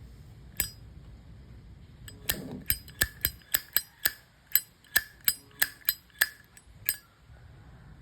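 1981 Zippo lighter being worked in the hand: its hinged steel lid flicked open and snapped shut, giving one sharp metallic click, then a quick run of about fourteen clicks with a short ring, roughly three a second.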